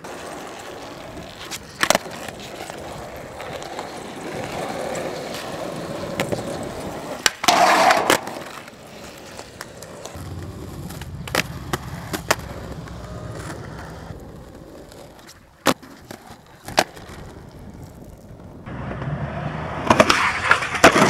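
Skateboard wheels rolling on concrete, broken by sharp clacks of the board striking the ground several times. The loudest clatter comes about eight seconds in and again near the end.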